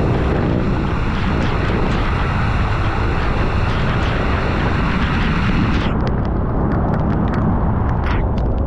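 Riding a scooter in heavy rain: a loud, steady rumble of wind and road noise on the microphone, with a hiss of rain and scattered sharp ticks. The high hiss drops away suddenly about six seconds in.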